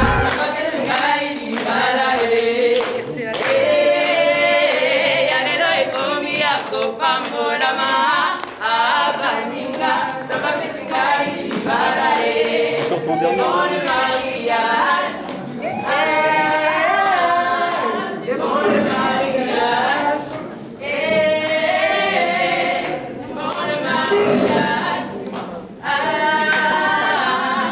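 A group of voices singing a cappella, with no instruments.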